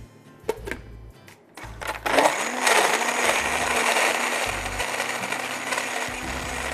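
A few knocks and clicks, then about two seconds in an electric blender's motor starts, rising briefly as it spins up and then running steadily, blending a yogurt, milk and ice drink with the lid held down.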